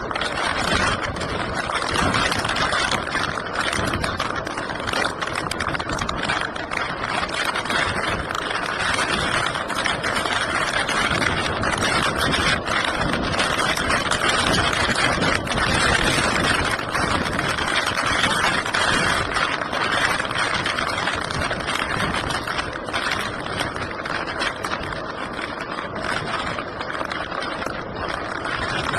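A vehicle's engine running steadily under a continuous rushing noise.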